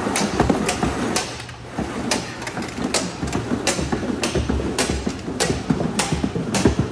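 Rescue stretcher with a geared-up firefighter being hauled up steel stairs, with boots on the treads: repeated sharp metallic knocks about two a second over continuous scraping and clattering.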